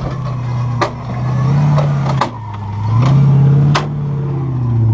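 Off-road 4x4, a classic Range Rover, working up a steep grassy bank, its engine revving in surges that rise and fall about three times. Three sharp knocks, each where the revs drop.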